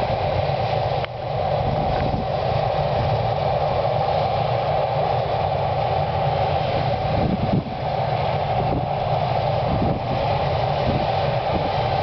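Combine harvester running steadily while harvesting grain, with a tractor and trailer alongside: a continuous machine drone.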